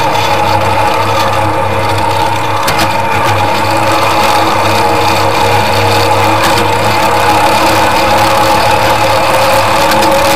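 Miniature railway locomotive running at a constant speed, a loud steady engine drone that does not rise or fall.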